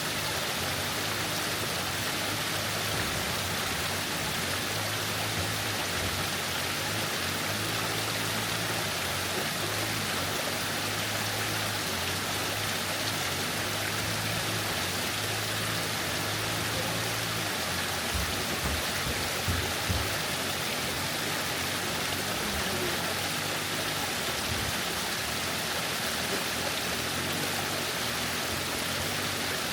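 Waterfall: a steady, even rush of falling water, with a few brief low bumps about two-thirds of the way through.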